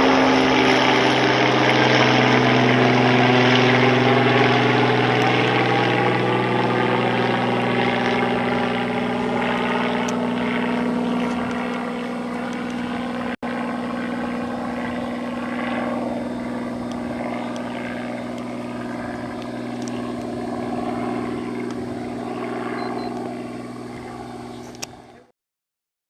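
Helicopter engine and rotor running with a steady low whine, slowly getting quieter. The sound cuts off suddenly near the end.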